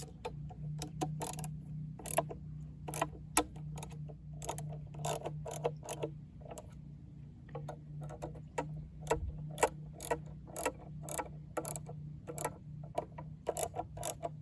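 Socket ratchet clicking as bolts are tightened: short sharp clicks of the pawl, about two to three a second in uneven strokes, while the bolts on a chainsaw carrier mount are snugged up.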